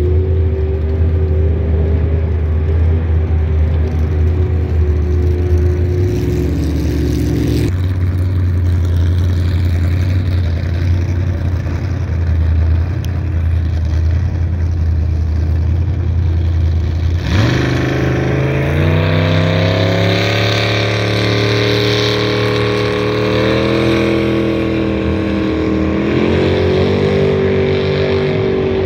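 Race jet boat engines running hard on the river, a steady high-revving drone. The sound changes abruptly about eight seconds in. Around seventeen seconds in an engine revs up sharply, climbing in pitch, and stays loud to the end.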